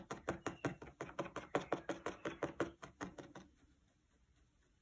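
Felting needle punching through wool fibres and a felt base into a foam pad, a quick, even run of soft stabs about six a second that stops about three and a half seconds in.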